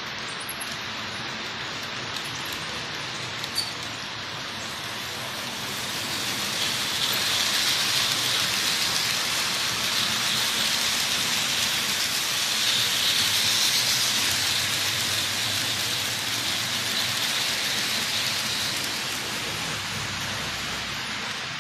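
Lima H0-scale model trains running on the layout's track: a steady noise of wheels and motors that grows louder from about six seconds in as a train passes close by, then eases off near the end. A single click about three and a half seconds in.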